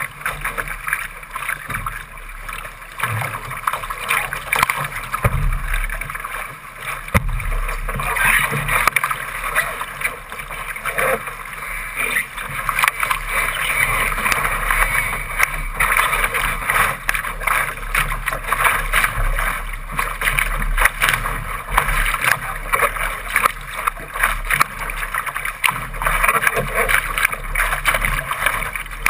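Water rushing and splashing along the bow of a Laser sailing dinghy as its hull drives through choppy water, with spray slapping the deck close to the microphone. It is irregular and grows louder and busier about a third of the way in.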